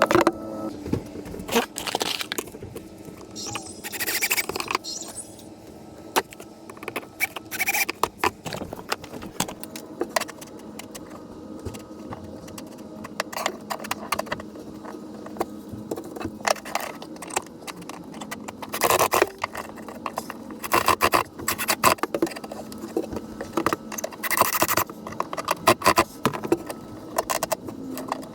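Irregular knocks, clicks and scrapes of hand work on wood and hardware, with a few longer scraping bursts, over a faint steady hum.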